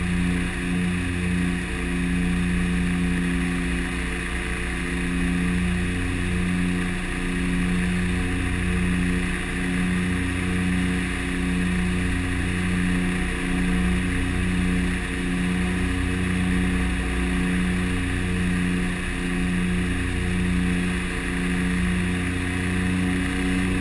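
The twin turboprop engines and propellers of a de Havilland Canada DHC-6 Twin Otter, heard from the cockpit, running steadily on final approach. They make a loud drone with a slow, even throb about once a second.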